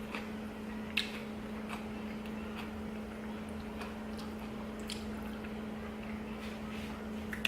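Someone chewing food close to the microphone: scattered wet mouth smacks and clicks, the sharpest about a second in, over a steady hum.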